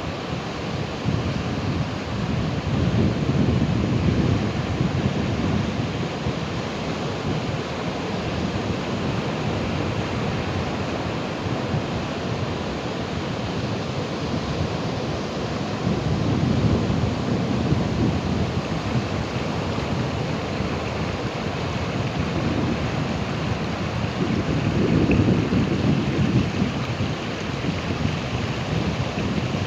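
Ocean waves breaking and washing in: a continuous rush that swells three times, with slow surges about 4, 17 and 25 seconds in.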